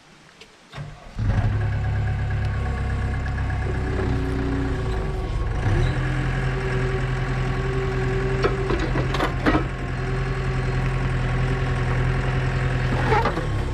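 Skid steer engine running steadily, coming in abruptly about a second in, with a few sharp metallic knocks partway through and near the end.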